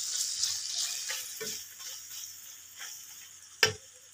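Raw chicken mince sizzling in hot ghee in a pan, the hiss slowly dying down, with a spatula scraping and one sharp knock against the pan near the end.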